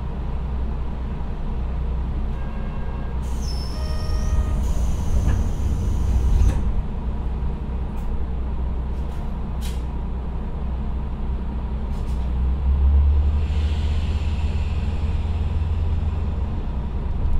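Niigata DMF13HZ turbocharged six-cylinder diesel of a KiHa 125 railcar, heard from inside the car, idling at a station stop and then throttling up about twelve seconds in as the railcar pulls away, with turbocharger whine. Earlier there is a chime and a long hiss of compressed air, followed by a few sharp clicks.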